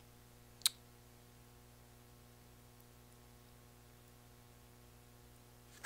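Quiet room tone with a low, steady electrical hum, broken by a single sharp click under a second in.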